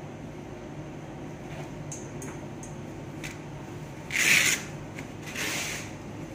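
Gloved hands handling a catheter on sterile drapes: a few light clicks, then two short rubbing rustles, the first the louder, over a steady electrical hum of room equipment.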